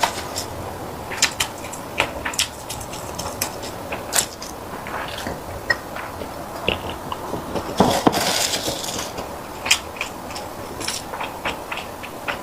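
Close-miked chewing of sticky rice: irregular sticky mouth clicks and smacks, with a louder, longer chewing noise about eight seconds in.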